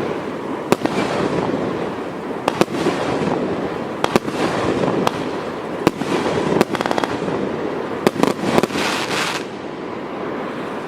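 Multi-shot firework cake firing: sharp bangs every second or two over a continuous crackling hiss, with a rapid run of crackles about seven seconds in and a quick cluster of bangs a little after eight seconds.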